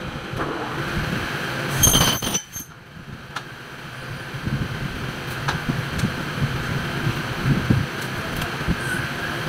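Aluminium cutting machine cutting through an aluminium profile about two seconds in: a brief, loud metallic screech with high ringing tones that cuts off abruptly. Scattered clatter and knocks of the aluminium pieces being handled on the steel table follow.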